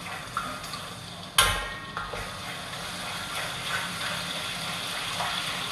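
Wooden spatula stirring a thick chili-and-tomato sauce in a steel wok, the sauce sizzling steadily on the gas flame. A single sharp knock about a second and a half in.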